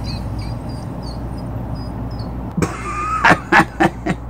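Faint high chirping over a steady low hum, then, a little past halfway, a man's voice making a run of short, loud, grunting noises.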